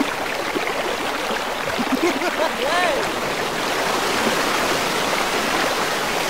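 Water rushing down a miniature concrete channel between model brick piers, a steady rushing flow. A few short pitched tones that rise and fall come through about two to three seconds in.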